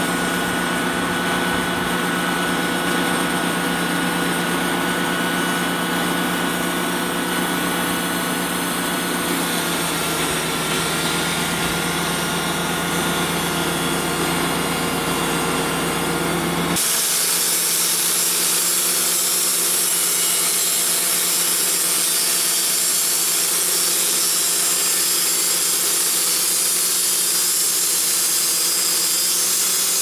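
Wood-Mizer LT35 portable band sawmill running steadily while sawing a white oak cant: an air-cooled engine hum with a steady high whine over it. About 17 seconds in, the sound abruptly turns brighter and thinner.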